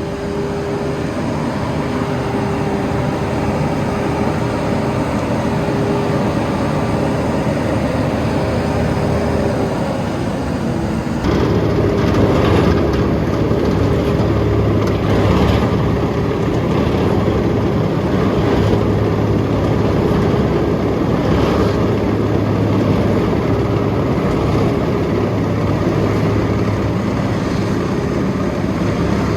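Vögele Super 1803-3i asphalt paver's diesel engine running steadily, with a steady whine over it. The whine dips in pitch about ten seconds in, and the sound changes abruptly just after, growing a little louder and rougher.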